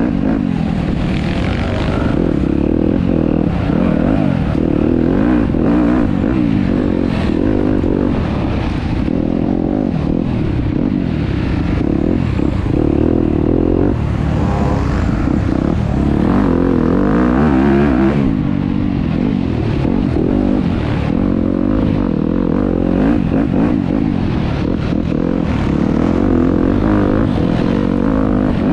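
Enduro dirt bike engine being ridden hard off-road, its revs rising and falling continuously with throttle and gear changes.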